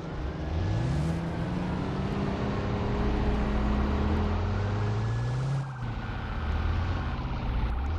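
Fire apparatus sirens over heavy engine rumble. A low siren tone winds up about half a second in, sinks away after the middle and winds up again at the end. A higher siren wails slowly up and down above it.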